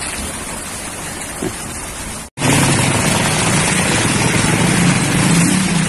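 Heavy rain hissing steadily, then after a brief cut about two seconds in, louder rain with a steady low rumble.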